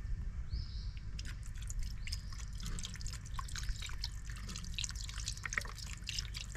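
A pot of tomato-based sauce piquante bubbling on the fire, with a quick, irregular scatter of small pops and plops over a steady low rumble.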